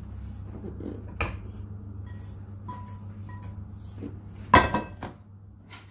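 A nonstick frying pan being handled and set back down on a glass induction hob: a knock about a second in, then a loud metal clatter with a brief ring about four and a half seconds in. A few short beeps sound between them.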